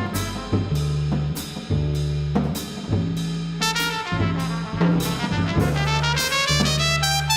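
Live jazz trio: a double bass plays held low notes under drums and cymbal strokes while a brass horn plays a line that climbs in pitch in the second half.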